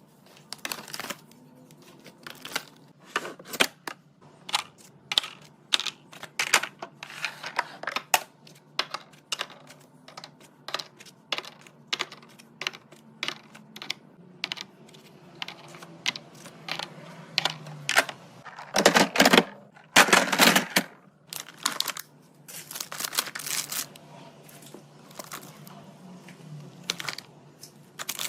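Containers and packaged food being handled and set down on fridge shelves: a run of light clicks, taps and knocks of plastic and glass, with two louder, longer rustling bursts about two-thirds of the way through.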